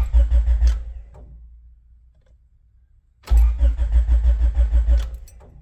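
Honda H22 four-cylinder engine cranking on the starter twice, first for about a second, then for about two seconds, turning over with an even beat and never catching: it has no spark.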